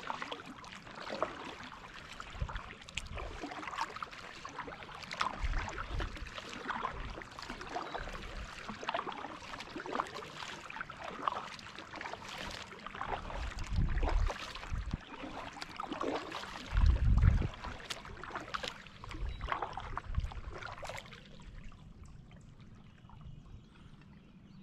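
Kayak paddle strokes through calm water: repeated dips and pulls with drips and small splashes, thinning out to quiet gliding over the last few seconds. A few low thumps on the microphone, the loudest about two-thirds of the way through.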